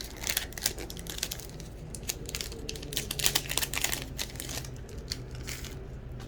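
Foil trading-card pack wrapper crinkling and tearing as the pack is opened: a rapid, irregular run of crackles that stops shortly before the end.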